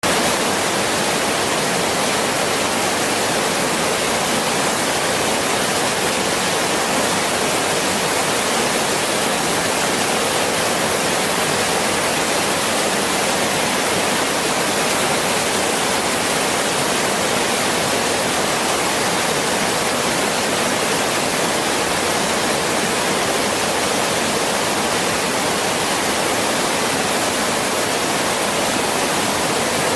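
Waterfall on the River Braan in spate after heavy rain: a loud, steady, unbroken rush of falling water.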